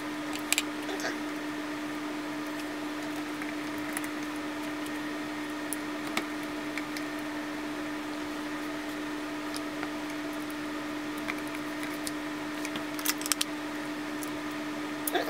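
Scattered small clicks and taps of a screwdriver and tiny screws being handled while a hard drive's circuit board is unscrewed, with a few quick clicks together near the end, all over a steady hum.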